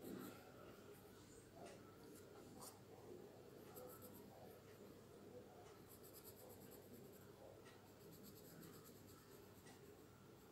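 Faint scratching of a graphite pencil on paper, in clusters of short quick strokes as the spots are shaded in.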